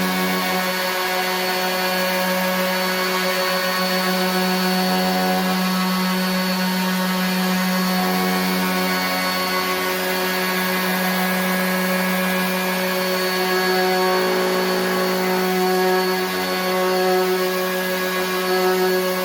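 RIDGID 18-volt cordless random orbit sander running steadily while sanding a rough piece of wood: a steady motor hum with the hiss of the sanding pad on the wood. Its tone shifts slightly about fourteen seconds in.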